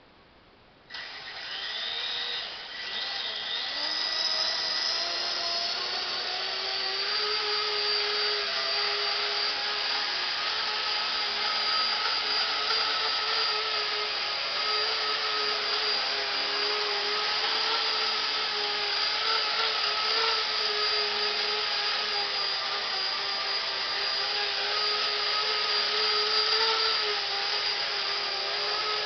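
Walkera CB180Q micro electric RC helicopter spinning up about a second in, its whine rising in pitch over a few seconds, then a steady high whine of the motor and rotors as it hovers.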